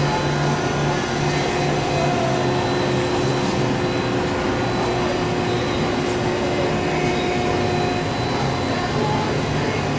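Micron MPC-600II CNC centerless grinder running with no part in the wheels, a steady, even hum with several held tones and no grinding contact; it is very quiet for such a machine.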